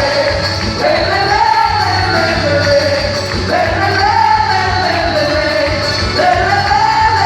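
Music with singing: a melody in long rising-and-falling phrases over a steady beat.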